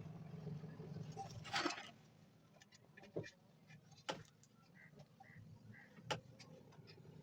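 A brief scraping rustle, then three sharp clicks spaced a second or two apart, as of small hard parts being handled, over a low hum.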